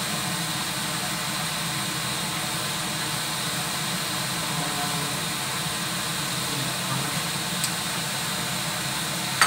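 Steady hiss and low hum in the kitchen as a wok of pork and chicken feet cooks on the stove, with a faint click late on and a single sharp tap at the very end.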